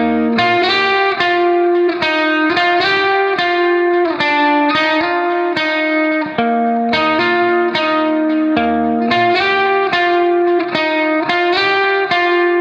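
Background music: a plucked guitar melody with steady rhythmic note changes.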